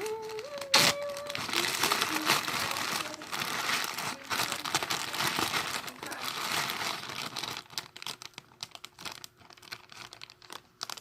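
Thin plastic bags crinkling and crackling as a smaller bag is balled up and pushed into another as stuffing. There is a sharp crack about a second in, then dense crinkling that thins to scattered crackles in the last few seconds.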